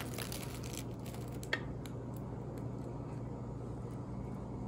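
Faint crackle of the crispy deep-fried bread crust as the cut roll is pulled apart: a few light crunches in the first second and a sharper click about a second and a half in, over a steady low hum.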